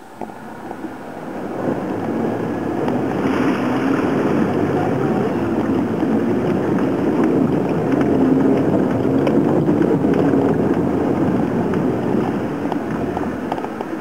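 Vehicle driving through a flooded river crossing, heard from inside the cabin: water rushing and splashing against the body over the engine running. The noise builds about two seconds in and eases near the end as the vehicle climbs out onto the bank.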